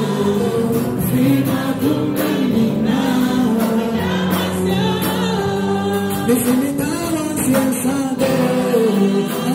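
Live gospel worship song: a male lead singer with a mixed backing choir, over band accompaniment with a steady beat.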